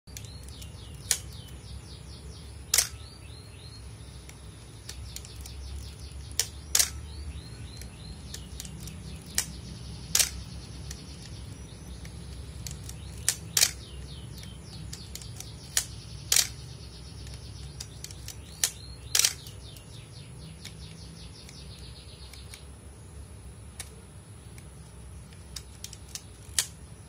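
Pentax Spotmatic 35 mm SLR's mechanical shutter being fired about eight times, each release a sharp clack, several heard as two clicks a fraction of a second to about a second apart as the shutter opens and closes at slower speeds. Between releases come runs of rapid ratcheting ticks, the film-advance lever being wound to cock the shutter.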